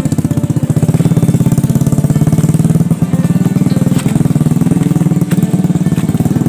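Small motorcycle engine running steadily at low speed close up, its fast, even firing pulses unbroken throughout.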